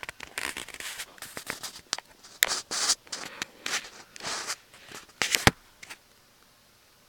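Close, irregular scraping and rustling with sharp clicks, like handling noise, with a loud sharp knock about five and a half seconds in; it stops about six seconds in.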